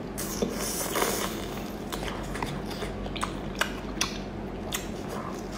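Close-up eating sounds: wet chewing and smacking of lobster meat, with scattered sharp clicks and crackles as the shell is handled.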